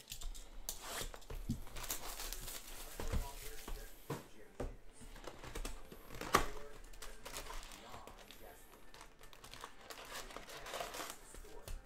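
Plastic wrap crinkling and tearing as it is stripped off a retail box of Panini Prizm trading cards, with cardboard rustling as the box is opened. There is a sharper snap a little past halfway.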